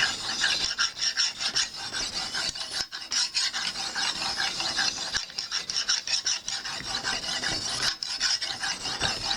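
Lansky ultra-fine hone scraping back and forth along a knife edge in repeated strokes, with a few short breaks: the final polishing stage of sharpening before stropping.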